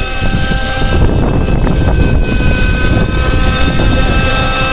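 Small glow-fuel (nitro) engine of an RC helicopter running at flying speed: a steady high-pitched whine with the rotor's low whooshing rumble underneath, getting louder about a second in as it comes in low toward the microphone.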